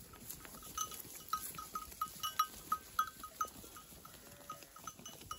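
Neck bells on a flock of sheep clinking irregularly, several small ringing clanks a second, as the animals move and graze.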